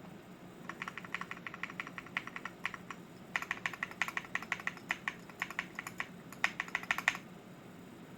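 Typing on a stock, unmodded Leobog Hi75 mechanical keyboard with KTT Kang White linear switches and GMK BOW replica keycaps. Quick runs of keystroke clicks start about a second in, pause briefly near the middle, and stop shortly before the end.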